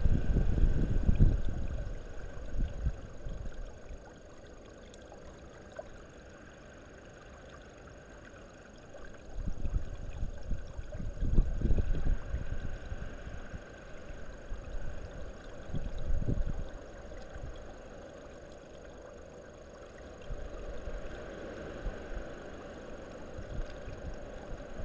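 European robin bathing in a shallow garden pool, splashing the water in short bouts, with low gusty rumble between and under the splashes.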